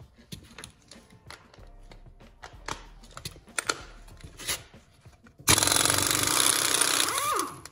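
A Chicago Pneumatic CP7748 half-inch air impact wrench hammering on a rusted front hub/CV axle nut for about two seconds, starting after light metal clinks as the socket is fitted. The nut is seized and does not come off.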